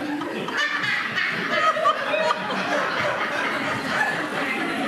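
People laughing and chuckling, with short bursts of voices rising and falling.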